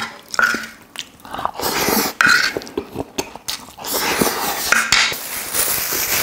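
A wooden spoon scrapes and clinks in a large bowl of bibimbap, with eating sounds. Near the end a thin plastic bag crinkles as it is opened.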